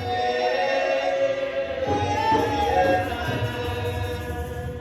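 Voices singing a slow, chant-like gospel line with long held notes, fading away near the end.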